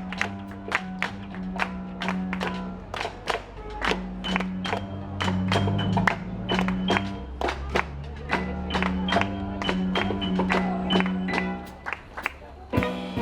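Instrumental background music: quick, sharply struck notes over held low bass notes, moving into a fuller passage near the end.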